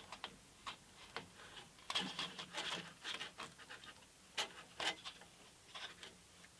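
Paper-backed sandpaper strip rustling and scraping as it is wrapped by hand around a plywood drum-sander drum, with scattered small taps and two sharper clicks past the middle.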